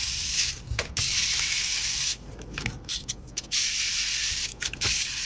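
A steady hiss that cuts out abruptly three times, with a few small clicks in the gaps.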